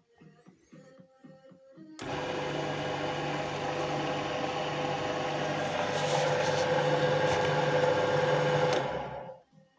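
Drill press motor switched on about two seconds in, running steadily, then switched off near the end and winding down.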